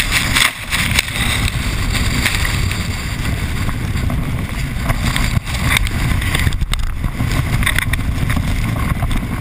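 Water rushing and splashing against a towed inflatable tube skimming over a lake wake at speed, with heavy wind buffeting on the microphone. The noise dips briefly a couple of times.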